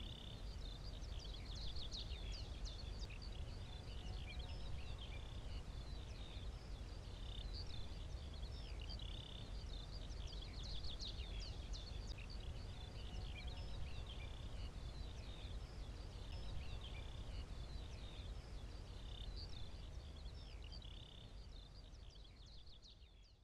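Many small birds chirping and twittering over a low, steady outdoor rumble. It fades out near the end.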